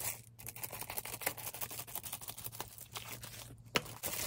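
Packaging of a boxed card set being opened by hand: a run of quick, small crackles of plastic wrap with one sharper click near the end.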